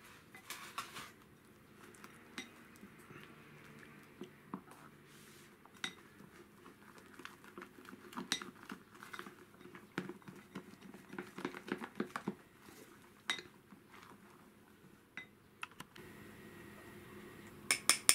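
A plastic spatula scrapes and knocks against a glass mixing bowl, folding meringue into batter, with scattered light clicks. Near the end come a few sharp taps as flour is tipped from a small bowl into a metal mesh sieve.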